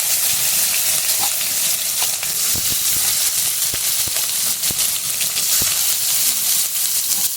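Chopped tomatoes frying in hot oil with nigella seeds in a wok: a steady sizzle with scattered pops and crackles.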